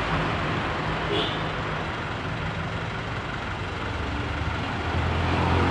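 Hino Dutro 110MD car-carrier truck's diesel engine running as the truck creeps along, a steady low drone that grows louder near the end.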